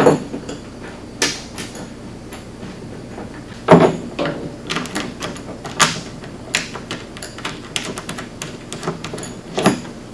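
Irregular clicks and knocks of small screws, washers and metal brackets being handled and fitted against a plastic cargo box, with a few louder knocks, the loudest about four seconds in.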